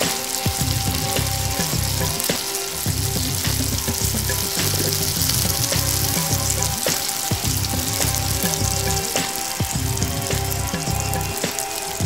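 Beef shami kababs shallow-frying in hot oil, sizzling steadily with fine crackles. Background music with a pulsing bass line plays underneath.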